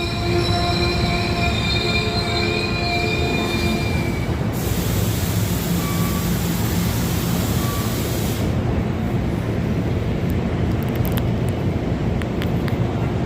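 Commuter train in the station, rumbling with a steady high-pitched squeal for the first four seconds or so. A loud hiss follows for about four seconds, then the rumbling goes on with light clicks and knocks.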